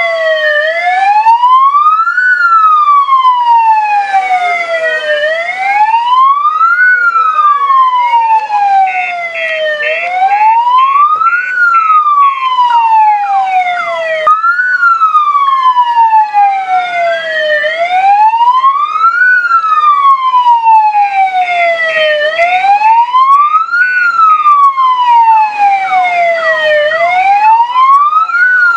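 Vehicle electronic siren in wail mode, loud, rising quickly and falling more slowly in a repeating cycle of about four and a half seconds, with a fainter second sweep behind it. Twice a short run of rapid high beeps sounds over the wail.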